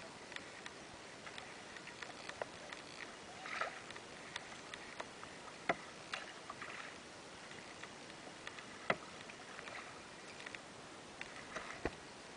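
Kayak on the move: a few soft paddle splashes and drips over a steady hiss of wind and water, with scattered sharp clicks and knocks.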